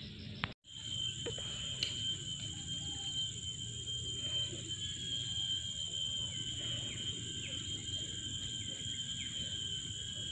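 Insects in the trailside vegetation keep up a continuous, steady high-pitched drone, the ambient sound of the tropical hillside. A brief cut-out comes about half a second in.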